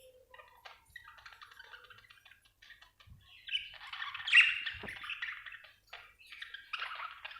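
Budgerigar chattering and warbling, with a louder stretch of squawky calls about four seconds in.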